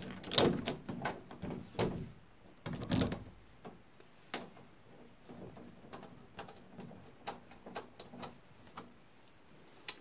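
Doorknob hardware being handled and its mounting screw turned in by hand: a few louder metal knocks and rattles in the first three seconds, then a run of light, irregular metallic clicks.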